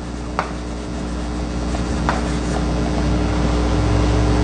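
A low, steady mechanical hum that grows gradually louder, with a couple of light clicks.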